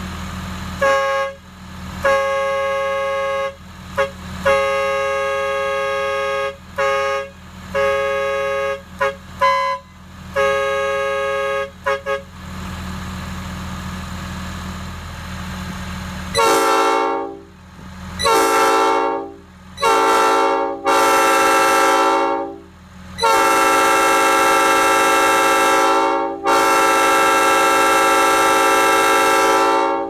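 A handheld Impact air horn sounds a run of short, steady chord blasts. From about halfway, an old cast-bell Nathan P5 five-chime locomotive air horn on a stand blows a series of louder blasts, each bending up into its chord, ending with two long blasts.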